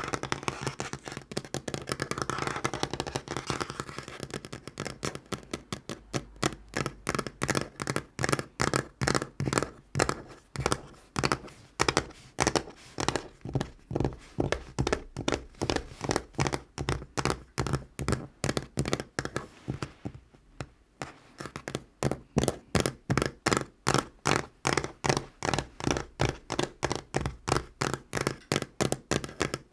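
Natural fingernails tapping on a tabletop. At first the taps come very fast and run together. After about six seconds they settle into a steady rhythm of distinct clicks, about three a second, with a brief pause about two-thirds of the way through.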